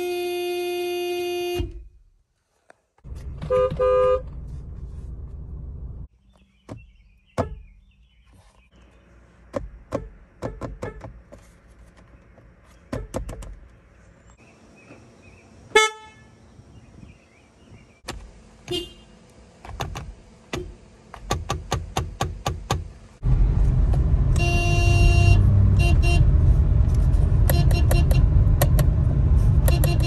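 Car horns sounded one after another. A steady honk of about two seconds comes from a Toyota, then a second horn of about three seconds, then a run of quick taps and brief toots with a short chirp near the middle. In the last seven seconds a long Honda Civic horn blast sounds over a low rumble.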